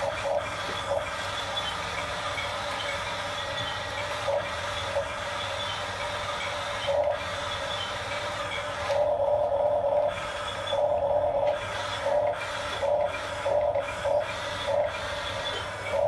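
Small electric drive motors and gearboxes of Huina RC construction toys (bulldozer and dump truck) whining. The whine is steady at first, then comes in short stop-start bursts from about nine seconds in as the controls are worked.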